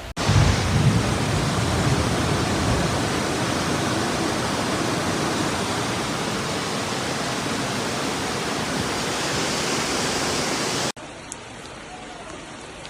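Loud, steady rush of water, with a low rumble in the first few seconds. It cuts off abruptly about eleven seconds in.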